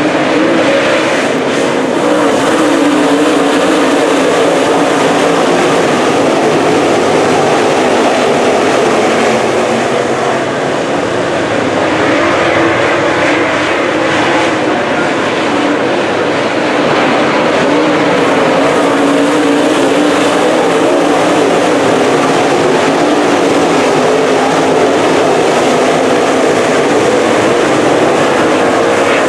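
Dirt late model race car's V8 engine running hard at racing speed, loud and steady, easing slightly about ten seconds in before picking back up.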